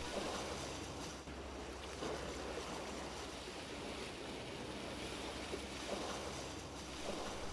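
Sea waves washing past a sailing catamaran under way: a steady, even rush of water.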